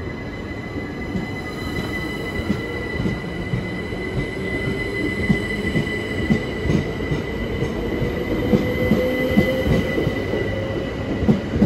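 Class 377 Electrostar electric multiple unit pulling away, its traction motor whine rising slowly in pitch as it gathers speed, with steady high-pitched tones over the rumble and irregular clicks of wheels over rail joints and pointwork.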